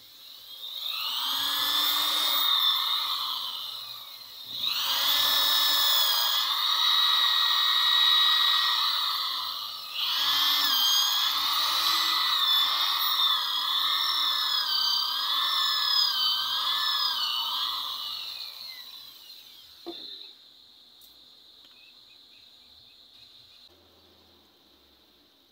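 Corded electric drill boring into a wooden knife-handle block: the motor whine runs three times, pausing briefly about 4 s and 10 s in, its pitch dipping and rising as the bit bites, and cuts out near 19 s. A single sharp click follows about a second later.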